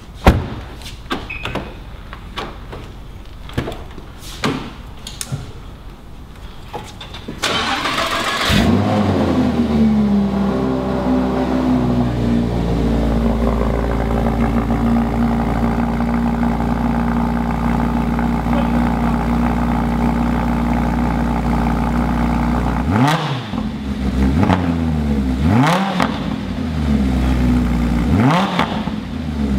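Lamborghini Huracán's V10 engine starting: a few clicks and a thump, then the starter whirs and the engine catches about eight seconds in with a flare of revs, settling into a fast, steady cold idle. Near the end the throttle is blipped three times, each a quick rise and fall in pitch.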